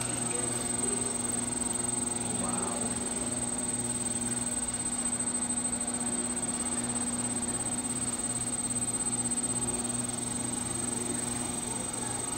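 Electric pottery wheels running with a steady, even motor hum.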